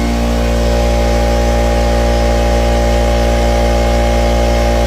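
Air compressor running steadily with a constant motor hum, building up pressure.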